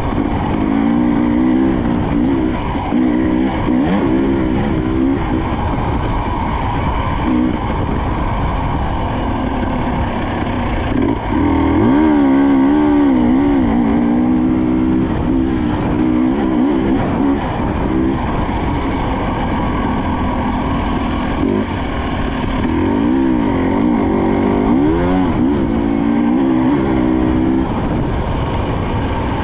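Husqvarna TE300i 300 cc two-stroke dirt bike engine running under load on a trail, its pitch rising and falling again and again as the throttle is worked.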